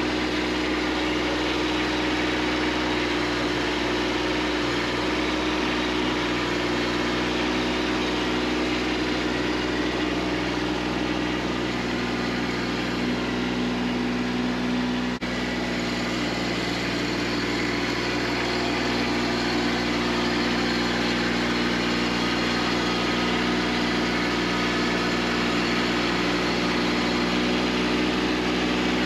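Kubota B2601 compact tractor's three-cylinder diesel engine running steadily.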